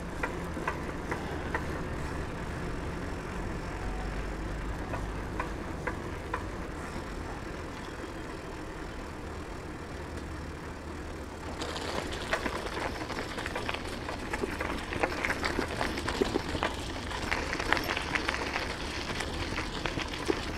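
Bicycle riding over a rough road: a steady low rumble of tyres and wind on the microphone, and from about halfway a busier, slightly louder crackling and rattling.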